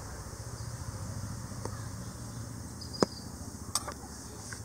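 Steady drone of insects (crickets or cicadas), with two sharp clicks about three seconds in, a spoon tapping against the steel mixing bowl.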